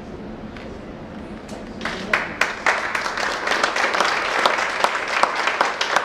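Crowd applause breaking out about two seconds in and continuing, many hands clapping, over a low steady background.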